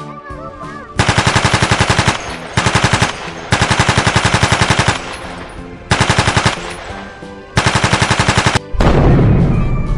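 Machine-gun fire sound effect in five rapid bursts of about a dozen shots a second, then a deep explosion boom near the end.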